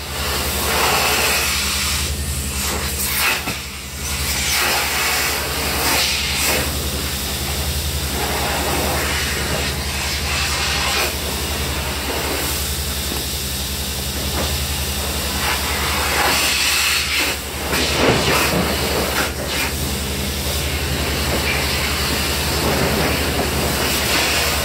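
Industrial vacuum hose sucking up spent sandblasting grit: a steady rushing hiss over a low machine hum that surges and dips as the nozzle is worked across the floor.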